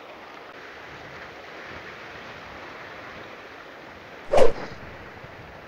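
Sea surf washing over a rocky shoreline, a steady rushing noise, with one short loud burst about four seconds in.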